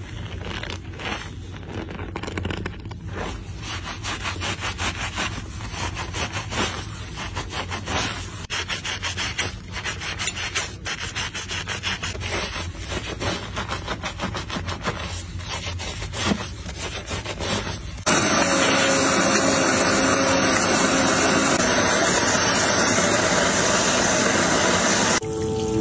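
Gloved hands rubbing and squeezing thick shampoo foam into wet hair, a run of repeated squelching rubs on the scalp. About two-thirds of the way through this gives way suddenly to a louder, steady rush of water spraying from a hair-washing shower head onto the hair.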